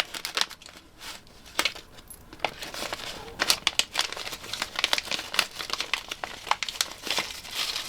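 Packaging crinkling and rustling in quick irregular crackles as a boxed Geissele G2S trigger is unwrapped by hand.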